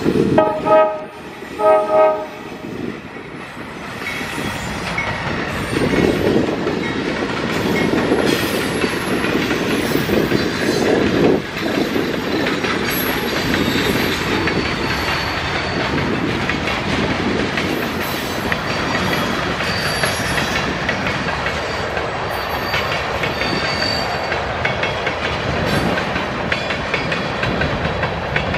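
Norfolk Southern freight locomotive sounding two short horn blasts as it passes. It is followed by the steady rumble and clickety-clack of tank cars and covered hoppers rolling by, with brief faint high wheel squeals now and then.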